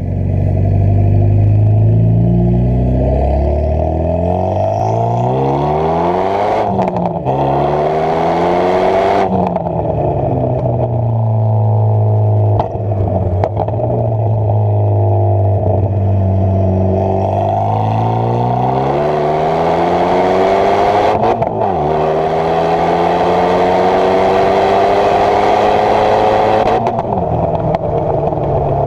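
Renault Megane 225's turbocharged 2.0-litre four-cylinder through a decatted stainless exhaust with the back box deleted, pulling hard with its pitch climbing, then dropping sharply at each lift-off or gear change, several times. A few sharp pops and crackles come around the lifts.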